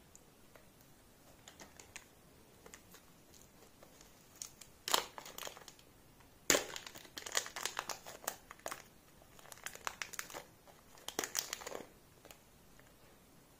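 Thin plastic wrapper crinkling and tearing as a block of modelling clay is unwrapped by hand: a run of sharp crackles starting about four seconds in and stopping shortly before the end.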